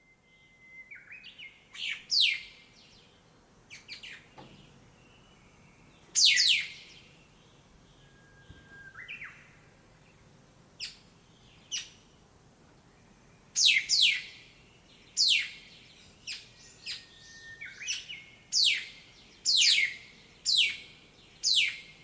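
Songbirds chirping: a string of sharp, loud chirps that sweep steeply down in pitch, coming every second or so, with a few quieter thin whistled notes in between.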